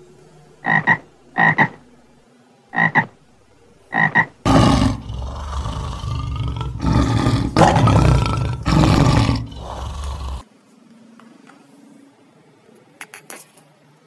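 Animal calls: four pairs of short, pitched calls, then a long, loud, rough call lasting about six seconds.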